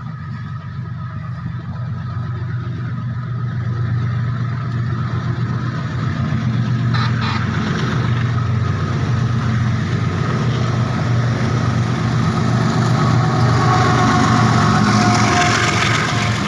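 Diesel locomotive's engine running under power as it pulls a passenger express away from a station, a steady deep hum that grows louder as it approaches. Near the end it passes close with its coaches, and wheel-on-rail noise rises.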